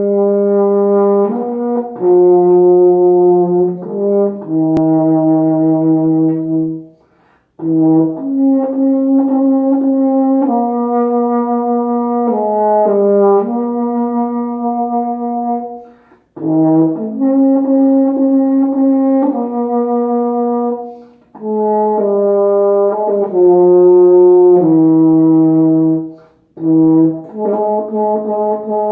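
King 2280 euphonium played solo: a slow melody of long held notes in phrases of about four to five seconds, each phrase ending in a short pause for breath.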